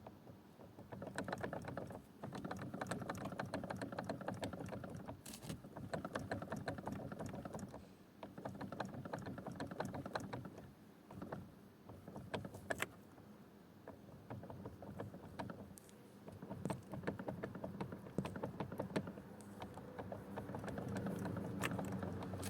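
Knocking in a second-generation Toyota Prius (Prius 20) steering column: rapid rattling knocks in stretches of a few seconds with short lulls, and a few single sharper knocks. It is the steering-column knock fault.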